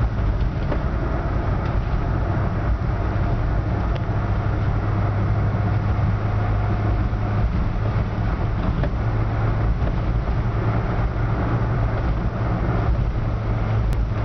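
A 2006 Subaru Sambar van heard from inside the cab, cruising at a steady speed: its four-cylinder 660 cc kei-car engine runs with an even low hum over road noise.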